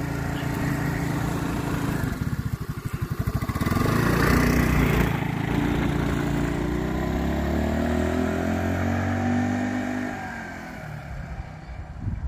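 Small petrol scooter pulling away and riding off. Its engine pulses at first, then rises steadily in pitch as it accelerates, and fades over the last couple of seconds as it draws away.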